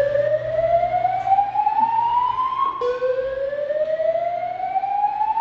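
Hotel emergency alarm sounding a slow whoop tone over the building's speakers, each sweep rising steadily in pitch for about three and a half seconds before dropping and starting again about three seconds in. It is the building's early-alert tone, sounded while the cause of the alarm is being investigated and before any evacuation.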